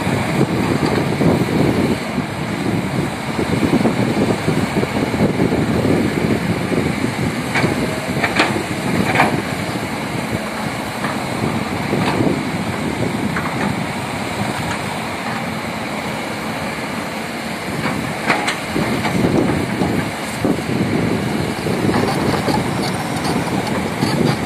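Heavy construction machinery running steadily, its engine noise dense and continuous. A few short sharp sounds cut through it about eight seconds in and again near eighteen seconds.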